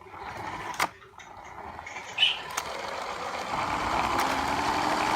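Small electric motor of a toy RC car whirring as the car drives across the floor, growing louder over the last few seconds, with a couple of sharp knocks early on.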